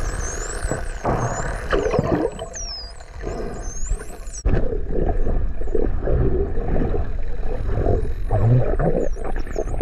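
Bottlenose dolphins whistling underwater: many overlapping rising and falling whistles, thick in the first half and fainter later, over a loud low churning of water against the camera.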